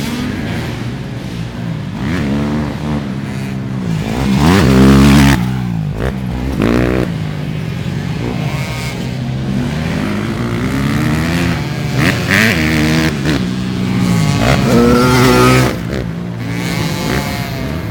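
ATV engines racing, revving up and dropping back again and again as they accelerate and shift, loudest about four to five seconds in and again near the end.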